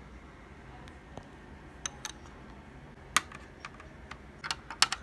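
Small hard plastic Lego pieces clicking and tapping against a Lego baseplate: scattered single clicks, a sharp one about three seconds in, then a quick run of the loudest clicks near the end.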